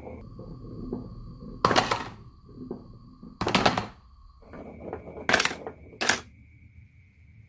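Marbles clattering and rolling down a wooden marble run, with four loud bursts of clacking: two longer rattles in the first half and two short sharp ones near the end.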